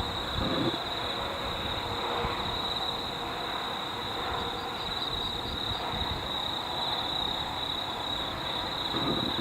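Steady high-pitched insect chorus trilling without a break over a low, grainy background rumble, with a short run of faint high pips in the middle.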